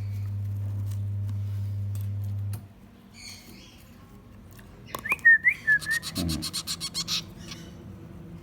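Finch chicks begging: a fast run of sharp repeated chirps, about ten a second, with a short whistle gliding up and down over its start. Before it, a steady low hum cuts off a little over two seconds in.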